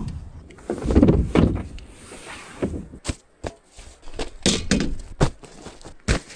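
Irregular sharp knocks and clicks, a dozen or so, with dull thuds about a second in.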